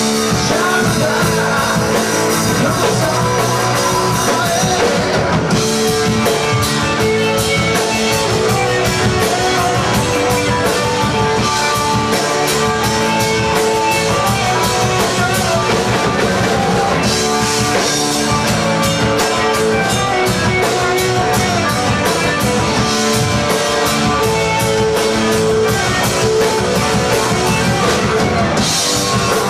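Rock music with a drum kit and guitar, playing steadily throughout.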